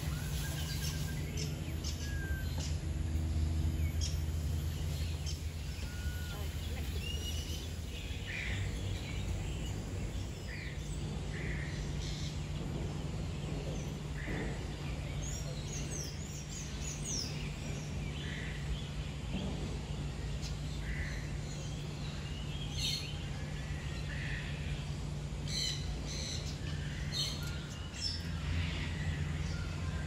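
Several birds calling in an aviary: short chirps and squawks scattered throughout, with a few quick gliding squawks about halfway through, over a steady low hum.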